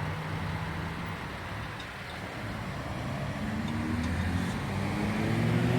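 A road vehicle's engine running, first a steady hum, then rising in pitch from about three seconds in as it accelerates.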